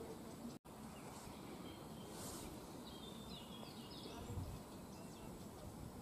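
Open-field ambience: a steady low noise bed with faint, high bird chirps about three to four seconds in. The sound cuts out completely for an instant about half a second in.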